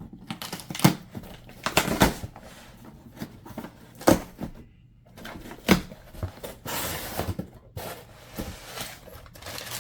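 Irregular knocks, taps and clicks of a packaged item being handled and set on a surface, with a brief rustle about seven seconds in.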